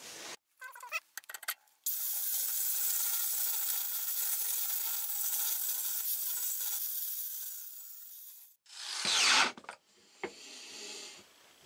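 A grinder working down fresh weld beads on a steel axe head. It runs steadily for about six seconds, tails off gradually, and gives one more short burst after a few light clicks at the start.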